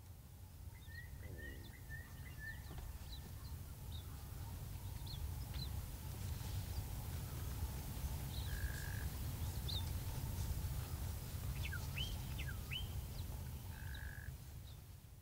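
Wild birds calling: a quick run of about five chirps about a second in, then scattered short sweeping whistles and two brief steady notes. A steady low rumble sits underneath.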